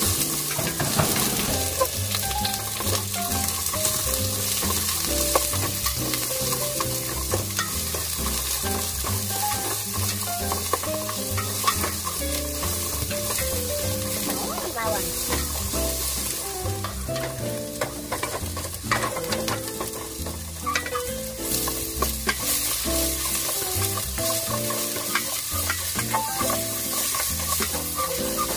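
Garlic sautéing in hot oil in a pan: a steady sizzle, with the utensil scraping and tapping against the pan as it is stirred.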